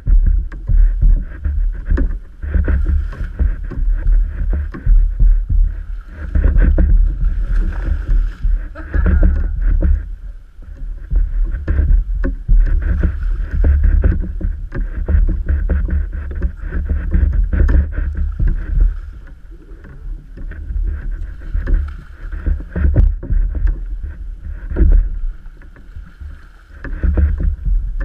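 Water sloshing against a kayak hull and wind buffeting the camera microphone, making a loud, gusty low rumble that rises and falls every second or so.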